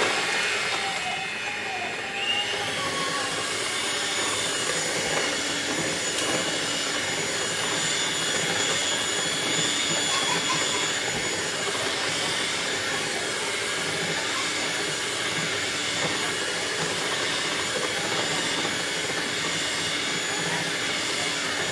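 Black+Decker electric hand mixer running steadily, its beaters whirring through thick cream cheese cheesecake batter.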